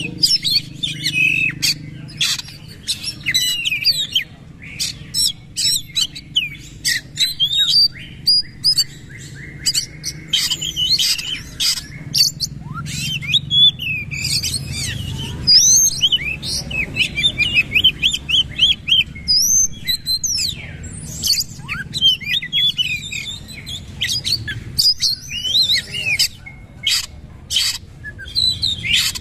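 Oriental magpie-robin (kacer) singing a fast, unbroken song of gliding whistles mixed with many sharp clicking notes.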